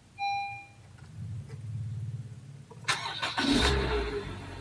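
A car's dashboard chime sounds once, then the Honda HR-V's engine is cranked and catches about three seconds in, settling into a steady idle: the first start after a fresh engine oil change.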